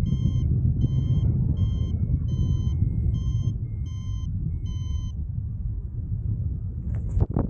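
Paragliding variometer beeping its climb tone: about seven short beeps at one steady pitch, a little more than one a second, stopping about five seconds in, which signal that the glider is rising in lift. Under them, wind rumbling steadily on the microphone in flight, with a couple of sharp knocks near the end.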